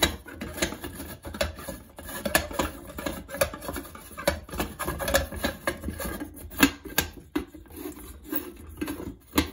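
Fingers handling the glass globe and metal tab of a recessed shower-light enclosure while lining it up, making irregular light clicks, taps and scrapes.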